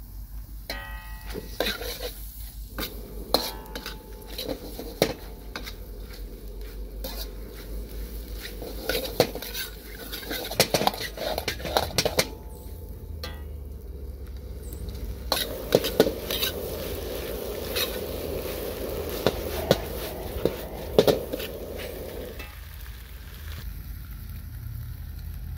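Stainless steel ladle scraping and clanking against a carbon-steel wok during stir-frying, with many sharp metal knocks, while squid, onion and tomato sizzle in the hot pan. A steady low rumble runs underneath.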